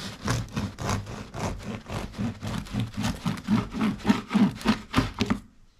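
Serrated bread knife sawing through a freshly baked loaf on a wooden board, in quick back-and-forth scraping strokes, about four a second, which stop just before the end.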